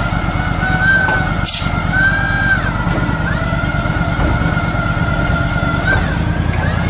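An engine running steadily, with a steady high whine over it.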